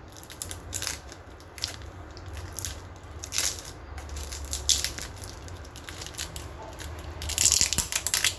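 Handling noise on the action camera's microphone as it is gripped and repositioned on a makeshift charging rig: irregular clicks, scrapes and rustles, louder near the end.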